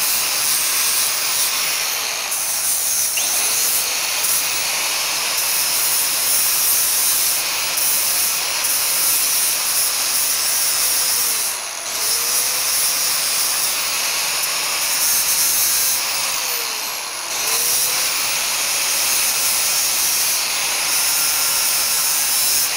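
DeWalt angle grinder with a flap disc grinding down spot welds on a metal frame: a steady, loud hiss of abrasive on metal, the motor's pitch sagging and recovering as the disc is pressed on and eased off. It drops briefly about halfway through and again at about three-quarters.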